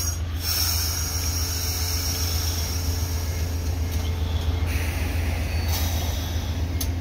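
Amtrak Northeast Regional passenger cars rolling past close by: a steady low rumble of wheels on rail, broken by several short bursts of high hiss.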